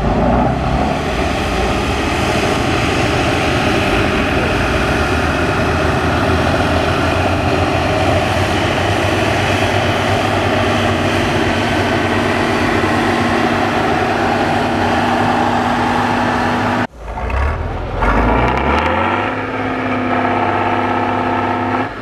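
Tatra 813 8x8 trial truck's diesel engine running loud and hard under load as the truck works through a muddy ditch and up a slope. After a break about three-quarters of the way through, the engine revs up with a rising pitch and then holds steady.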